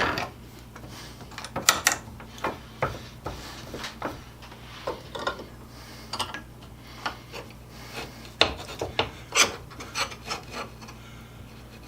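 Irregular scraping strokes and light knocks of metal tools and workpiece being handled, about fifteen in all, over a faint steady hum.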